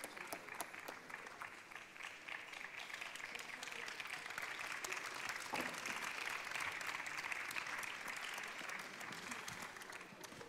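Audience applauding, swelling in the middle and dying away near the end.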